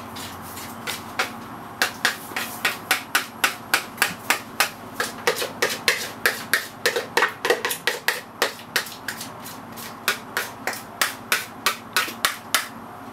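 A kitchen utensil knocking sharply and repeatedly against a dish, about three knocks a second, with a short pause about ten seconds in. It fits mascarpone being spooned out and worked onto a cheesecake base.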